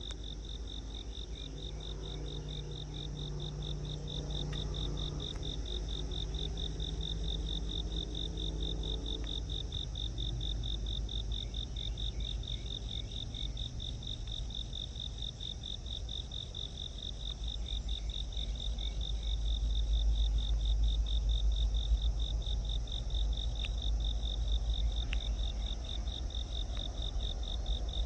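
Crickets chirping in a steady, rapid pulse, over a low rumble that grows louder in the second half. A faint low hum sits underneath during the first third.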